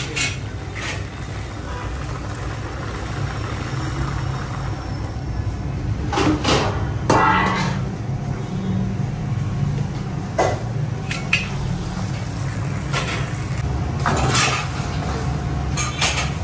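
Steel bowls and a steel jug knocking and clattering as the bowls are handled and stacked: about half a dozen separate knocks over a steady low hum.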